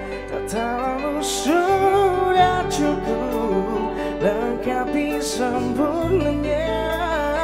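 Live band playing a song: a man sings over electric guitar and bass guitar, with a few cymbal strokes.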